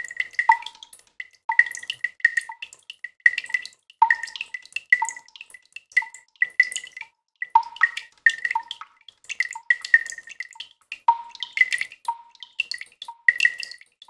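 Water drops falling into a plastic tub of water: several drip recordings layered and processed with delay effects. They make a dense, overlapping patter of plinks, about two or three a second, ringing at a higher and a lower recurring pitch.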